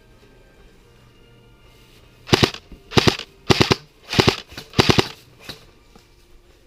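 Airsoft HK416 replica firing five short bursts of two or three shots each, about one burst every 0.6 seconds over roughly three seconds.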